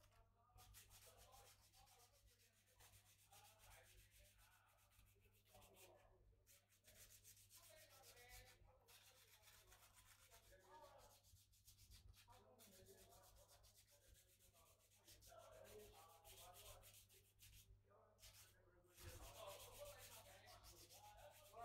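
Faint hand sanding of a bamboo-root hulusi part: uneven rubbing strokes, over a steady low electrical hum.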